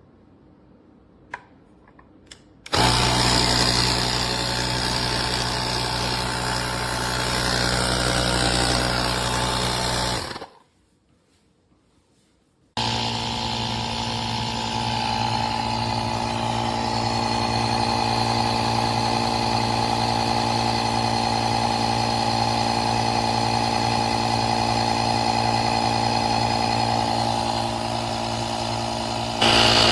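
Battery-powered handheld tire inflator's compressor motor, running steadily with a whine. It is preceded by a few small clicks. It shuts off for about two seconds, then runs again, louder near the end.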